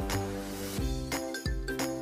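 Background instrumental music with held notes and a new note every fraction of a second.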